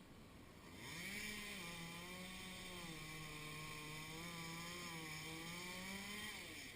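Chainsaw revved up about a second in and held at high speed for about five seconds with a hissing edge, its pitch settling a little lower and wavering slightly, then let back down near the end.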